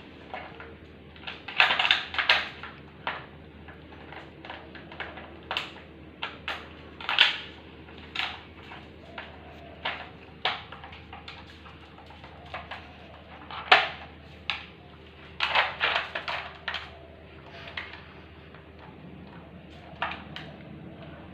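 Hard plastic pieces of a dog puzzle feeder clicking and clattering in irregular bursts as a dog noses at the covers and compartments to get at the treats. Some knocks come in quick clusters, with the single loudest clack about two-thirds of the way through.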